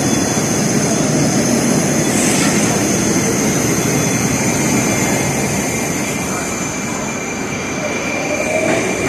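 Metro train standing at a station with its doors open: a steady loud rush of train and station noise with a thin high whine, heard first from the platform and then from inside the car. Near the end a faint rising tone comes in.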